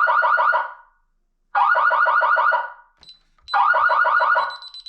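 Fire alarm system siren sounding in alarm, set off by a heat detector: loud bursts of rapid pulsing tone, about one every two seconds, three times.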